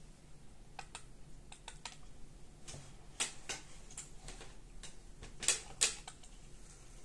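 Irregular light clicks and taps from fingers handling the rigging of a wooden model sailing ship, the loudest two close together a little past five seconds in.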